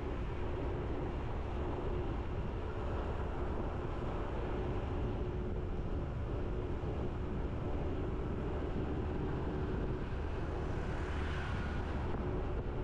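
Motorbike engine running steadily with road noise, heard from on the bike as a continuous low rumble. A brief swell of higher-pitched noise comes about eleven seconds in.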